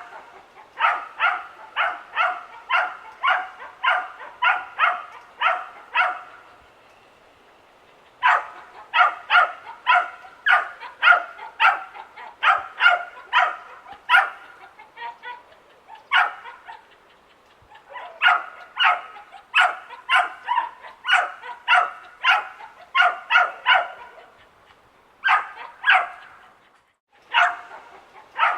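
Young dachshund barking over and over, about two sharp barks a second in long runs broken by a few short pauses.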